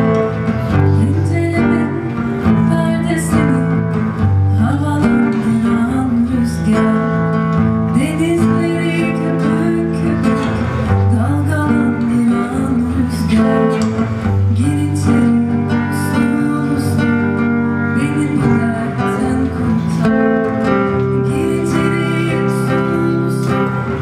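Live acoustic music: acoustic guitar and piano playing steadily, with a voice singing over them.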